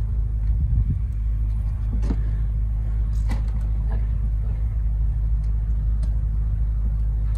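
A steady low rumble, with a few faint short scrapes or knocks over it.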